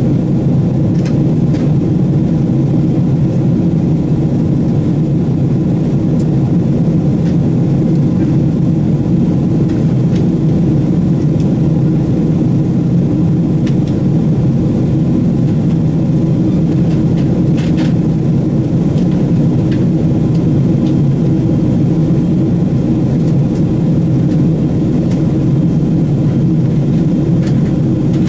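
Steady cabin drone of a Boeing 777-300ER in flight, heard inside the cabin: the GE90-115B jet engines and the rush of air past the fuselage make a loud, even low rumble. A few faint clicks sound here and there.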